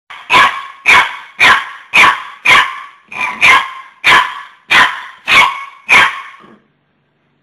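Young puppy barking: about eleven sharp barks in a steady rhythm, roughly two a second, stopping near the end.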